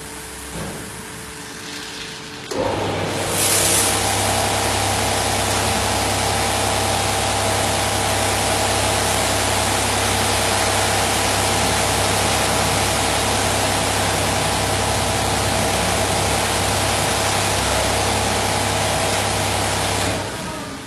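Automatic motorbike wash booth's pump and spray nozzles starting up about two and a half seconds in: a loud, steady hiss of high-pressure water spray over an even machine hum, which dies away near the end.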